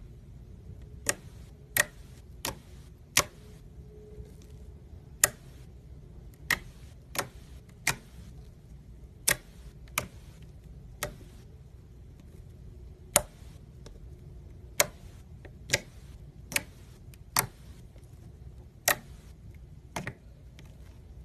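Slime being pressed and poked, giving sharp popping clicks at irregular intervals, roughly one a second.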